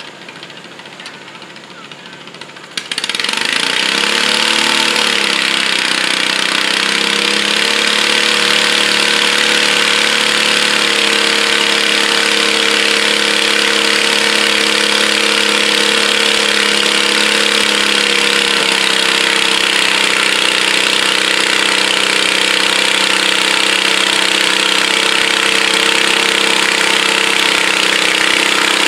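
Pulling garden tractor engine running loud and hard, starting abruptly about three seconds in and then holding a steady, slightly wavering pitch as the tractor pulls the weight-transfer sled.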